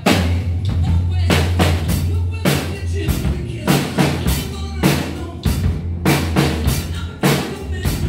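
Acoustic drum kit played in a steady rock beat, with bass drum, snare and cymbal strikes, over a backing music track with a sustained low note underneath.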